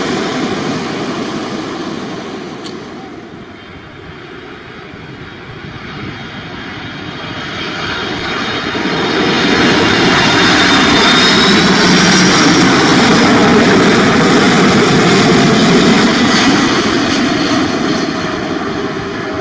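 The jet noise of an Airbus A330-200 that has just passed fades away. Then a Boeing 747-400F freighter on final approach passes low overhead: the roar of its four jet engines swells to a loud, steady peak, with a high fan whine that bends in pitch, and begins to fade near the end.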